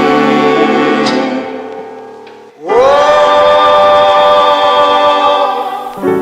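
Background music: sustained vocal-like chords fade out about two and a half seconds in, then a new chord swells in with an upward pitch slide and is held.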